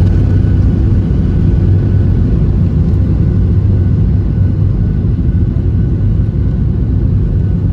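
Steady, loud low rumble of an airliner landing, with a faint steady high tone above it.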